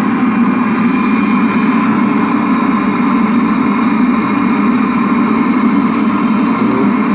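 Repaired Webasto diesel-fired auxiliary heater in a Seat Alhambra 1.9 TDI, running steadily with an even, unbroken hum.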